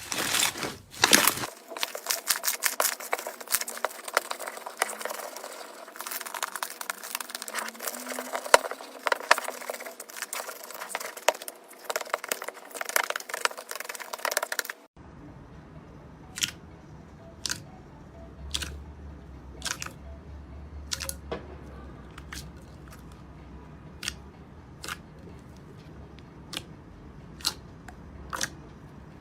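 Slime being squeezed and worked by hand: a dense crackling for about the first half, then after an abrupt cut, single sharp clicks and pops about once a second.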